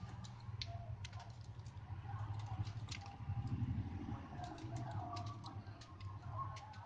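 Scattered light clicks and taps of a smartphone's opened plastic frame being handled and a small screwdriver working on its internal screws, over a steady low hum.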